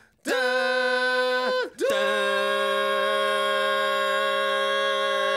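A cappella voices singing: a short held note, a brief break, then from about two seconds in a long steady chord held through the rest.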